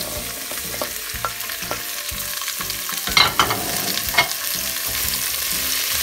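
Chopped vegetables sizzling in a stainless steel pot on a gas hob, with knocks and clatter as the pieces are tipped in and stirred with a wooden spatula; the loudest clatter comes about three to four seconds in.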